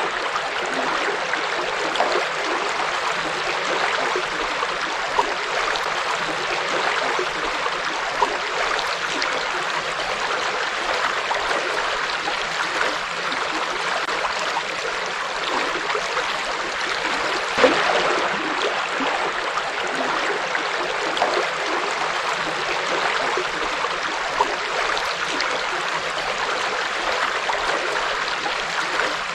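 A forest river flowing over rocks: a steady rushing wash of water with small splashes and gurgles throughout, one a little louder about two-thirds of the way through.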